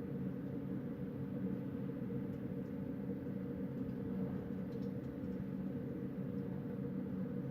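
Wind blowing steadily at night, a low, even rumble that neither gusts nor dies down.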